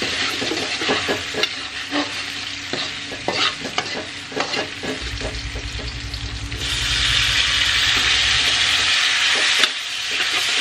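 Steel spatula scraping and tapping in a wok as sliced shallots fry in oil. About six and a half seconds in, boiled green beans are tipped in, and a louder, steady sizzle rises while the spatula stirs them, ending with a sharp clank near the end.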